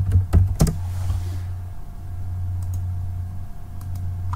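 Computer keyboard keys clicking as a short command is typed, three or four keystrokes in the first second, followed by a few faint clicks. A steady low hum runs underneath.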